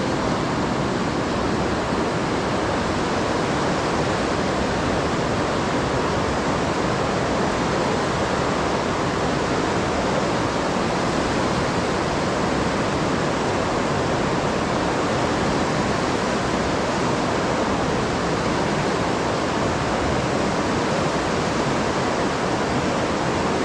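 Fast mountain river rushing through a narrow rock gorge: a steady, even noise of churning white water.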